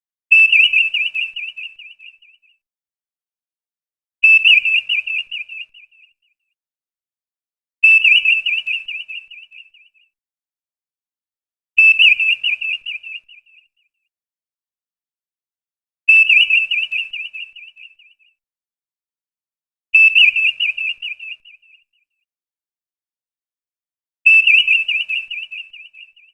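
Star Trek Enterprise viewscreen sound effect: a high electronic warbling trill that starts sharply and fades out over about two seconds, repeated seven times at intervals of about four seconds, with silence between.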